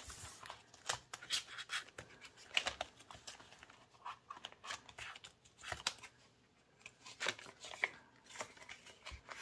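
Paper money and envelopes being handled by hand: irregular rustling and crinkling with short crisp snaps, quieter for a moment past the middle.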